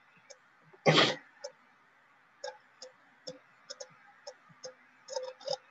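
Stylus tapping and clicking on a writing tablet during handwriting, in irregular short clicks that bunch up near the end. About a second in comes one brief, loud, cough-like burst from the speaker's throat.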